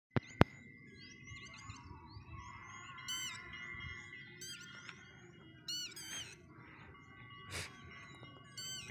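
Birds chirping and calling, with a louder call that has a falling end heard about four times, over a steady low rumble. A single sharp click sounds just under half a second in.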